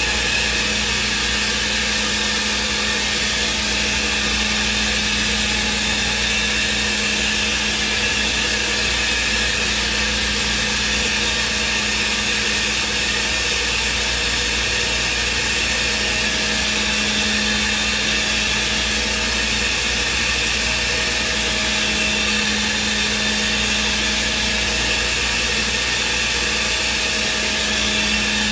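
Thermwood CNC router's spindle running steadily while its head machines a block: a constant high-speed whine with several steady tones over a hiss, unbroken throughout.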